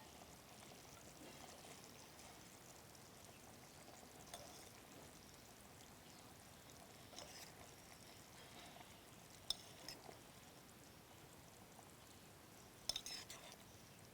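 Near silence with a few faint clinks and scrapes of a utensil against a bowl while curry is served; the loudest little cluster of clinks comes near the end.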